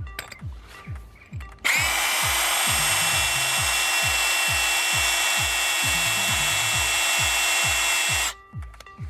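Parkside PABH 20-Li B2 cordless hammer drill starting up a couple of seconds in and running steadily at speed with a whine as its bit drills into a ceramic tile, then stopping abruptly near the end.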